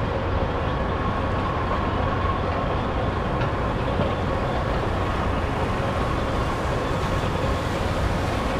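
Steady city rumble with a faint constant hum: an even wash of distant traffic noise with no distinct events.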